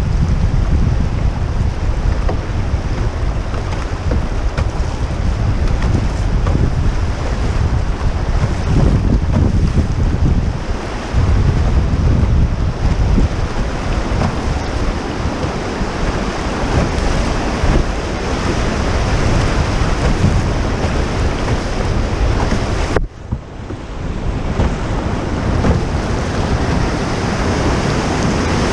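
Fast river water rushing through riffles and small whitewater rapids around a canoe, with wind buffeting the microphone. The sound drops out for a moment near the end, then returns.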